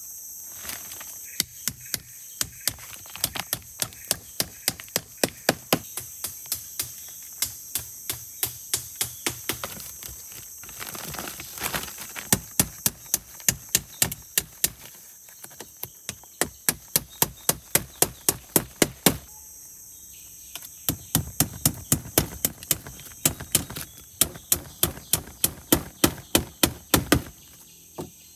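Repeated chopping strikes on wood, about three a second, in several runs with short pauses between them. A steady high drone of forest insects runs underneath.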